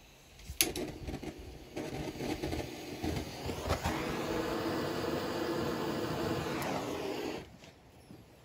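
Gas torch flame hissing steadily for about three and a half seconds as it lights magnesium shavings, then cut off suddenly. Before it come a sharp click and a shorter spell of hissing.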